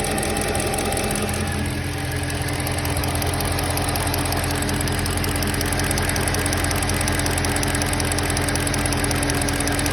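M3's engine running steadily at idle with a fast, even ticking over its hum: the strange noise the owner is trying to pin down. The engine's tone changes slightly about two seconds in.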